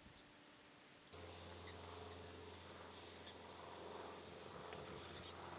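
Quiet ambience with short high-pitched insect chirps repeating every half second or so. About a second in, a steady low hum starts and carries on under the chirps.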